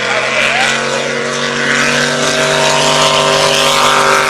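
Drag boat's supercharged engine running at high revs on a run down the course, its pitch held steady over the rush of spray.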